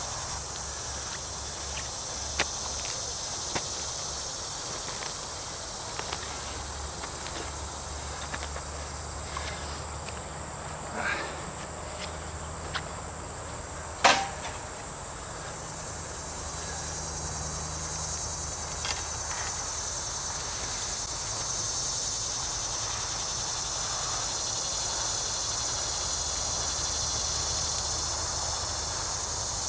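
A steel mattock chops into turf and soil with a few short, scattered thuds, the sharpest about halfway through. A steady high insect chorus, like crickets, runs underneath.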